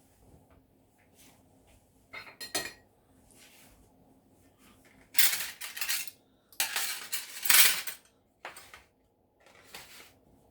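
Dishes and cutlery clattering and clinking during breakfast preparation. There are a couple of short clinks about two seconds in, then longer, louder bouts of clatter a little past the middle, and a few shorter ones near the end.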